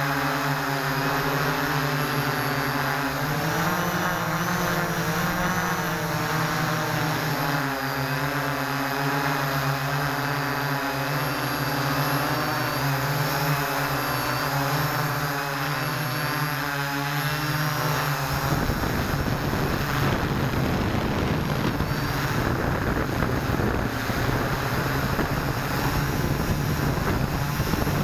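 Six motors and propellers of an S650 hexacopter whining steadily, heard from on board, with the pitch wavering as the throttle changes. About two-thirds through, rushing wind noise on the microphone comes in and masks much of the whine.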